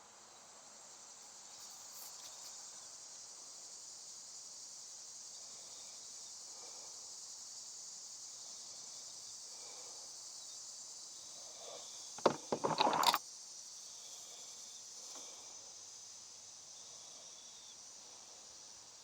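A steady high hiss, with hand tools clattering briefly about twelve seconds in.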